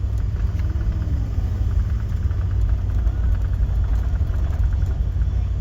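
Steady low rumble of a four-wheel-drive vehicle's engine running.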